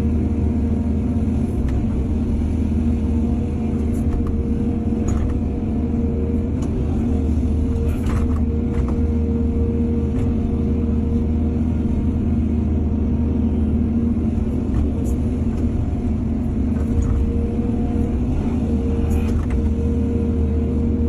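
Heavy diesel engine of an excavator running steadily under load, with a few faint knocks partway through.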